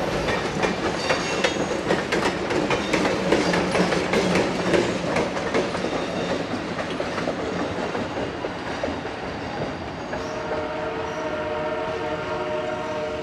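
Diesel-hauled passenger train passing on the rails, its wheels clicking rapidly over rail joints and slowly fading as it moves away. From about ten seconds in, a steady multi-note train horn sounds.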